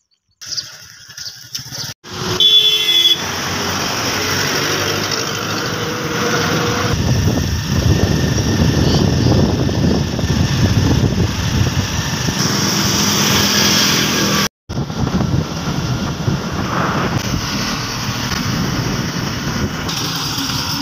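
Wind rushing over the microphone while moving along a road, with road traffic under it. The sound cuts out abruptly twice, about 2 seconds and about 14.5 seconds in.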